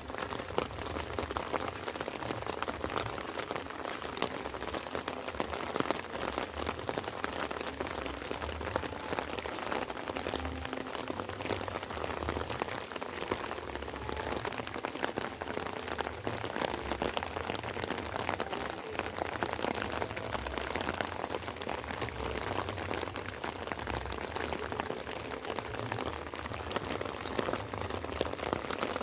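Light rain falling steadily, a dense patter of many small drops.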